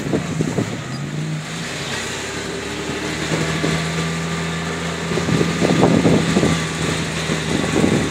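Engine of a four-wheel-drive vehicle driving over sand dunes, rising in pitch about a second in and then running at a steady pitch.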